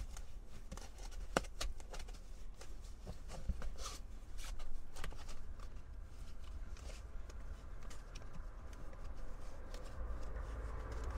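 Foam pool noodle being worked onto a metal cot bar by hand: irregular soft scuffing and rustling with scattered small clicks.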